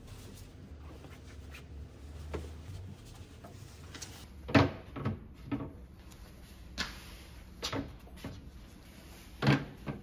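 House slippers being set down and shifted on a shelf: a series of light knocks and clatters of slipper soles against the shelf boards, the loudest about halfway through and just before the end, over a low room hum.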